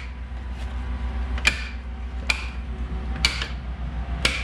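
Plastic retaining clips of a TRD Pro grille snapping into the grille surround as the grille is pressed in by hand: four sharp clicks about a second apart, over a steady low hum.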